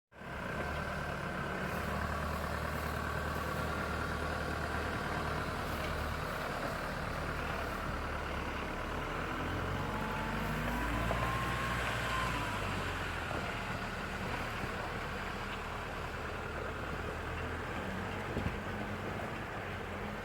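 4x4 vehicle engine running steadily at low revs, its low hum swelling slightly around the middle.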